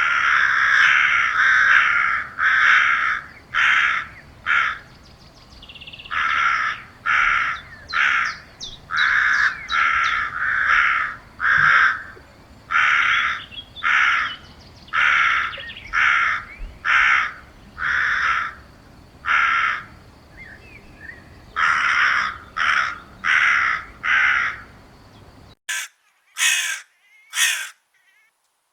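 Crows cawing over and over in harsh calls, about one to two a second, some in quick runs. Near the end the background drops away and a few sharper caws follow.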